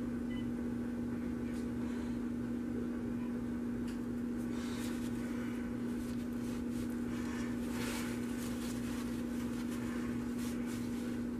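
A steady low machine hum, with a few soft scrapes of a spatula smoothing the top of soap batter in a wooden loaf mold, around the middle and again near the end.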